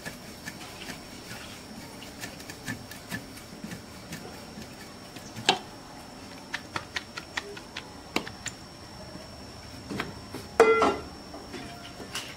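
Wooden rolling pin and round rolling board on a small metal stand clicking and knocking as a roti is rolled out and handled, in scattered light taps. A louder click comes about halfway, and the loudest knock, with a short ring, comes near the end.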